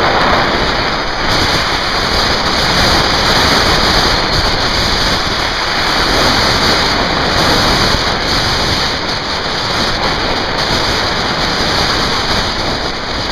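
Steady, loud rushing noise of a zipline descent: wind buffeting the camera microphone as the rider glides along the steel cable, blended with the trolley running on the wire.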